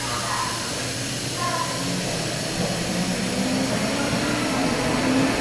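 Tokyo Metro 07 series subway train pulling away from a station, heard inside the car: steady running noise with a low motor whine that climbs in pitch as the train accelerates.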